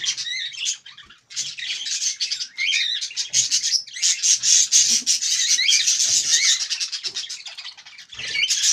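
Pet parrot chattering and squawking in a harsh, nearly continuous stream of chirps, with brief pauses.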